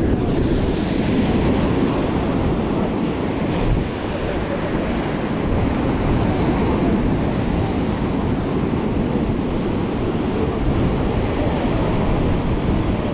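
Strong wind buffeting a GoPro's microphone over surf breaking against rocks: a steady, loud rush of noise.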